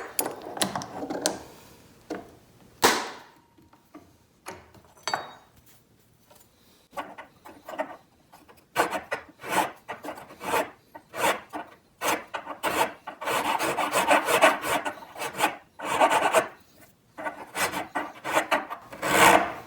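Hand file scraping back and forth on the dovetail head of a MicroJig Matchfit clamp, taking off a little material so the clamp fits a track saw track. A few strokes come first, then a quieter pause of a few seconds, then a long run of quick, steady strokes.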